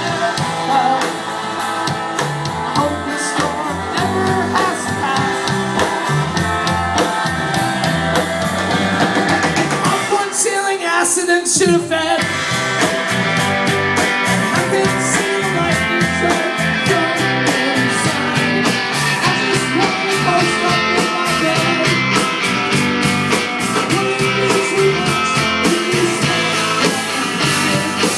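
Rock band playing a song with electric guitar, drum kit and singing. About ten seconds in, the bass and drums drop out for about two seconds, then the full band comes back in.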